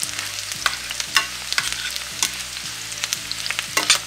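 Shrimp and yellowtail snapper sizzling in a stainless steel skillet while metal tongs stir them, clicking and scraping against the pan several times.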